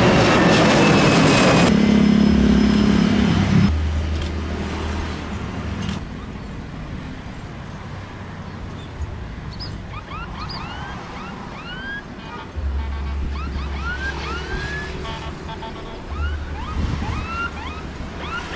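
Jet engines of a Batik Air airliner climbing out after take-off, a loud roar that cuts off abruptly about two seconds in. After that, a quieter low hum, with a string of short rising-and-falling whistling chirps from about ten seconds on.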